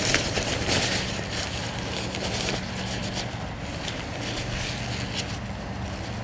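Nylon tent fabric rustling and crinkling in short bursts as the door panel is handled, over a steady low hum.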